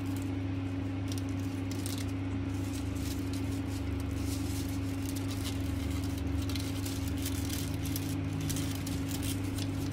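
Satin and glitter ribbon rustling and crinkling as hands loop and pull it through a braid, in many small irregular ticks over a steady low hum.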